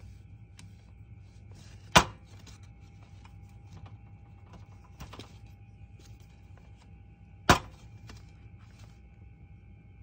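Wooden magnets clacking onto a metal pegboard: two sharp clacks, about two seconds in and again about seven and a half seconds in, with lighter ticks and taps between. A faint steady high whine runs underneath.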